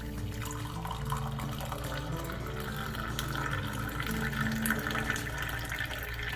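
Brewed coffee pouring in a steady stream, which stops abruptly near the end, over background music.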